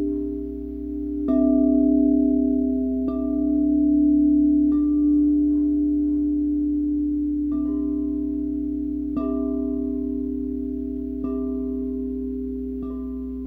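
Crystal singing bowls struck with mallets about seven times, each strike starting a clear tone that rings on and overlaps with the tones still sounding from the other bowls.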